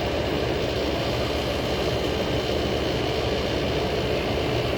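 Old General Electric Carry Cool window air conditioner running steadily, its compressor humming under the rush of its fan.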